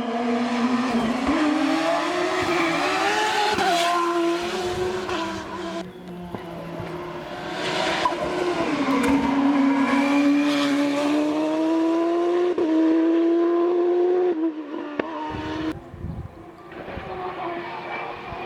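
Hillclimb race car engine at full throttle, its pitch climbing and then dropping back at each gear change. It eases off briefly about six seconds in and again near the end.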